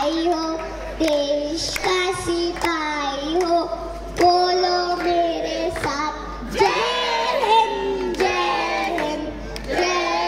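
A young girl singing solo into a stage microphone, with pitch bends and a long held note about halfway through.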